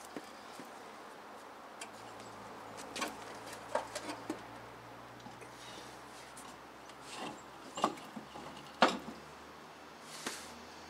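A truck wheel is hung back on its hub and the lug nuts are started by hand, giving a string of separate metallic clicks and light knocks. The sharpest comes about nine seconds in.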